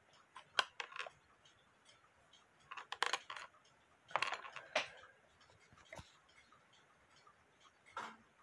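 Faint, irregular clusters of light clicks and rattles, a few short bursts a second or so apart with single clicks near the end.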